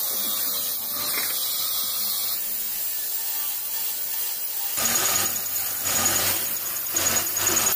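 Electric abrasive cut-off saw grinding through a steel bar with a steady hiss. About five seconds in, a metal lathe runs with a steady high whine over a low hum.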